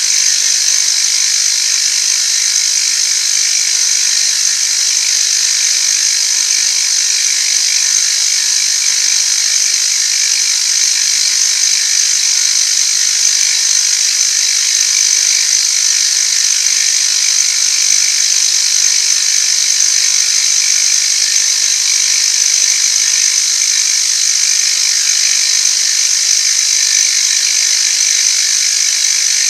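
Machine tool running steadily while taking a cut in metal, a high-pitched, unchanging noise.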